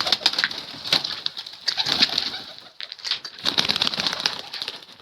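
Domestic pigeons at a rooftop loft, making three bursts of rapid clattering wingbeats.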